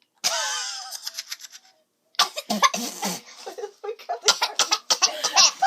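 Girls coughing, gagging and laughing as one tastes a roasted seaweed snack she finds disgusting. A sudden loud outburst just after the start fades away, then from about two seconds in comes a run of short coughs and laughs.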